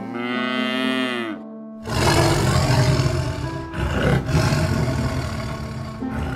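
A cartoon sound effect: a drawn-out pitched cry that falls in pitch at its end. After a short break comes a long, loud, rough roar, over background music.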